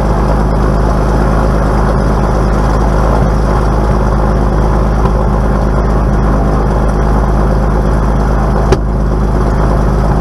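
Velocity kit aircraft's pusher engine and propeller running steadily while the plane taxis, heard from inside the cockpit. A single sharp click near the end.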